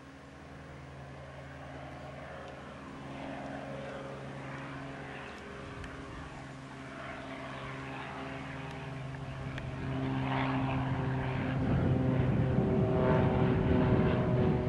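Single-engine Cessna floatplane in flight: the piston engine and propeller drone steadily and grow much louder as the plane climbs and banks in closer overhead, loudest near the end.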